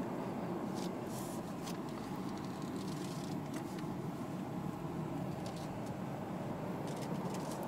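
Inside the cabin of a 2018 BMW 118i while driving: steady hum of its 1.5-litre three-cylinder turbo petrol engine and tyre rumble, with a few brief faint ticks.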